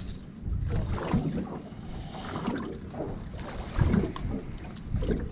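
Wind rumbling unevenly on the microphone, with water lapping and splashing against a fishing boat.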